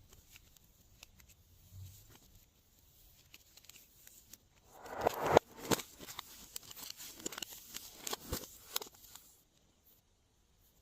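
Glossy slime being worked by hand: after a faint start, a burst of crackling pops and clicks about halfway in, then scattered crackles that die away near the end.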